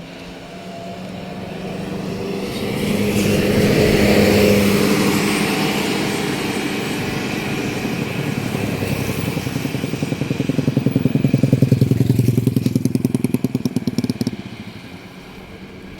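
Road vehicles passing close by. One engine swells past, loudest about four seconds in, then a second engine with a fast, pulsing beat comes closer and stops abruptly about two seconds before the end.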